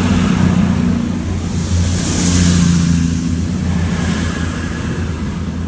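Underfloor diesel engines of a CrossCountry Voyager train departing, the carriages passing close by: a steady low engine drone with a rush of air and wheel noise, beginning to fade as the train draws away near the end.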